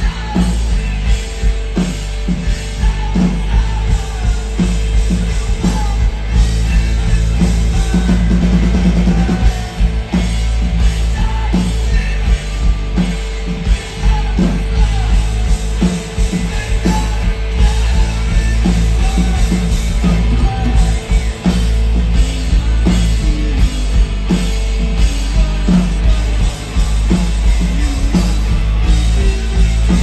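Live rock band playing at full volume through a stage PA: distorted electric guitars, bass guitar and a drum kit hitting a steady beat.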